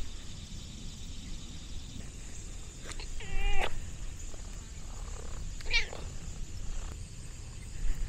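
Domestic cat meowing: one short meow about three seconds in, then a second, higher-pitched call about two seconds later.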